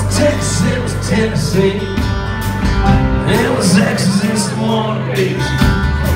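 Live band playing an instrumental passage between sung lines: electric and acoustic guitars, bass and drums, with a melody line moving over them.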